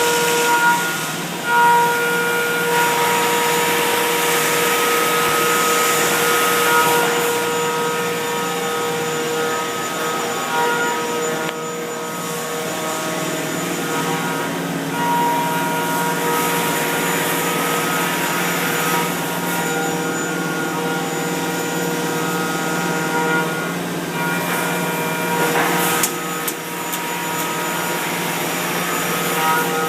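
Mazak CNC milling machine cutting copper: a steady machining noise with several whining tones that shift in pitch every few seconds as the cut goes on.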